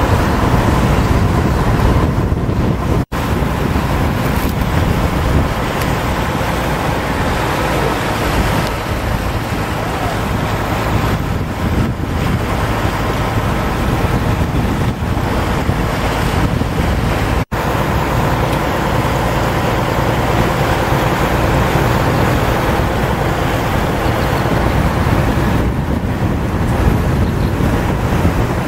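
A boat's engine running steadily under way, mixed with rushing water and wind buffeting the microphone. The sound cuts out for an instant twice.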